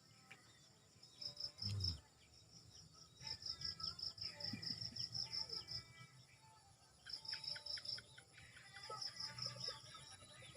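Insects chirping in repeated trains of rapid, evenly spaced high pulses, with birds calling in short, curving notes and a low rumble underneath.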